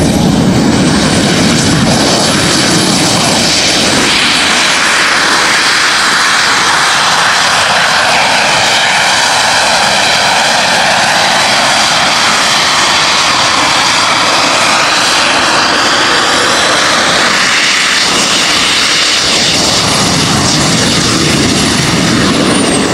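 Volonaut Airbike's compact jet turbines running at flight power: a loud, steady jet roar with a high whine that climbs in about a second in and winds down near the end.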